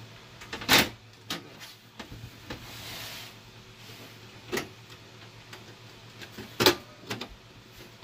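Knocks and clunks from an HP Compaq Elite 8300 small-form-factor desktop case being handled and turned on a desk: several sharp knocks, the loudest about a second in and again near the end, with a short scrape about three seconds in.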